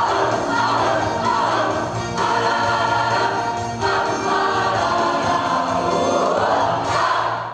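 A large mixed choir singing in harmony, holding sustained chords that change every second or two, fading out near the end.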